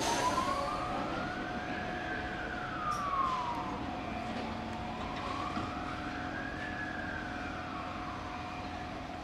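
A siren wailing slowly up and down, about two full rises and falls, with a steady tone under it. Beneath it is a low rumble from the slowly passing train of diesel locomotives.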